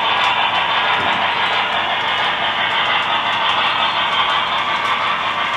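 Model steam locomotive and freight cars running along a model railroad track, a steady even rolling and running noise.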